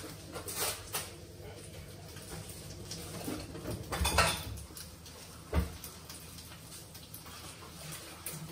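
Kitchen cooking clatter: scattered knocks and clinks of pots, pans and utensils, loudest in a short burst about four seconds in and a sharp knock a second and a half later, over a low steady hum.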